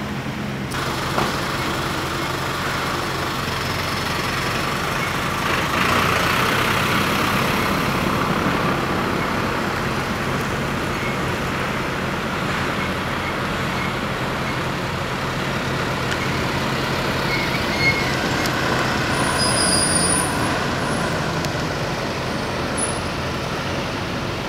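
Diesel engine of a three-axle Mitsubishi Fuso Canter light truck running as the truck drives past, over steady road and traffic noise. A brief high squeal comes about twenty seconds in.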